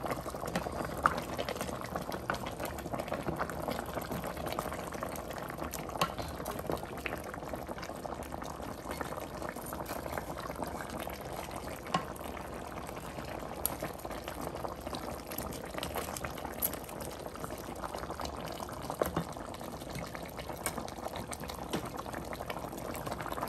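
Tomato sauce with salted tilapia and African eggplants bubbling steadily in a stainless steel pot, with a few light clicks now and then.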